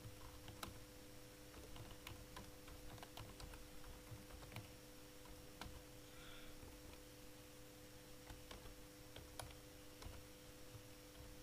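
Faint, irregular keystrokes on a computer keyboard as a short sentence is typed, over a faint steady electrical hum.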